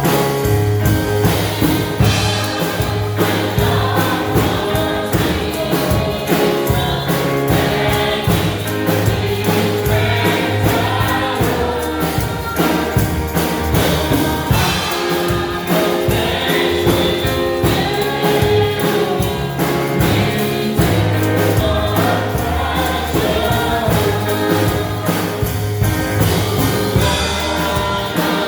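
Gospel choir singing over a live band with drums and bass keeping a steady beat.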